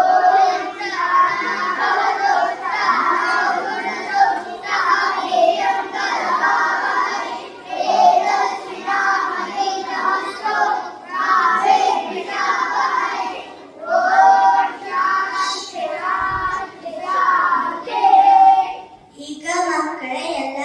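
Group of children singing a Kannada song together, line by line in short phrases with brief pauses between them.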